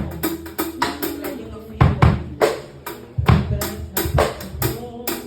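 Drum kit playing a groove during a band rehearsal: irregular strokes with a few heavier bass-drum hits, over held low instrument notes. It is a beat being worked out to the singer's feel, with hi-hat accents under discussion.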